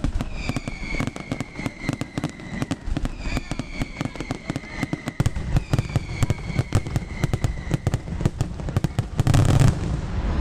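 Fireworks display: a fast, continuous run of bangs and crackles, with three long whistles that each fall slowly in pitch. A louder cluster of bursts comes near the end.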